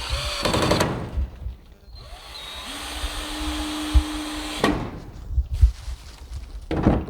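Power drill driving screws in separate runs: a short burst at the start, a longer steady run from about two seconds in to the middle, and a brief burst near the end.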